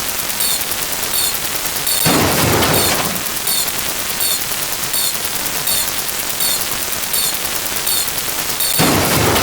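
Layered looping sound effects: a dense, rapid clatter of clicks over a steady hiss, with two louder noisy bursts about a second long, one about two seconds in and one near the end.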